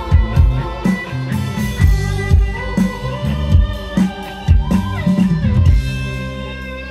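Live band music over a loudspeaker system: a steady drum beat of about two hits a second under held instrument notes. The drums stop near the end, leaving only the sustained notes.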